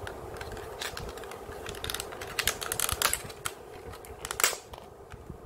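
Clear plastic blister packaging crackling and clicking as it is handled, in a quick run of sharp clicks from about two seconds in, the loudest near the end.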